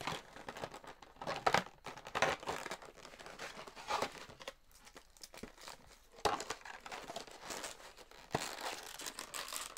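Plastic packaging from a Funko Soda figure being handled and crinkled, in irregular bursts of rustling.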